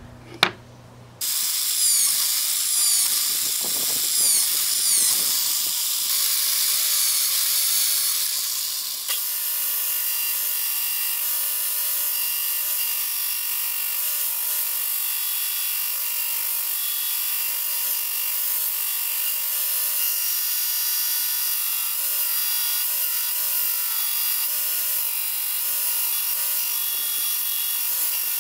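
Belt grinder running steadily while a stabilized wood handle block is ground against the belt to its marked outline. It comes in abruptly about a second in, after a few light clicks.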